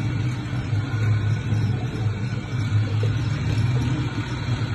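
Soap mixing machine running steadily with a low hum, mixing a batch of dishwash-bar soap paste.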